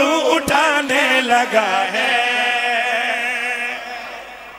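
Men singing a line of a devotional qaseeda in a wavering, ornamented melody, ending on a long held wavering note that fades out about four seconds in.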